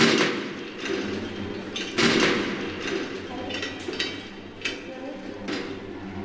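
Drama soundtrack of a hospital emergency: muffled, indistinct voices of a nurse and doctor over a steady low hum, with a loud thud right at the start and scattered knocks and clatters after it.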